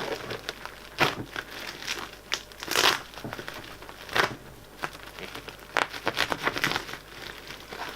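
Packaging being unwrapped by hand: plastic wrap and tape crinkling and tearing in irregular rustles, with sharper tearing crackles about a second in, near the three-second mark and around four seconds in.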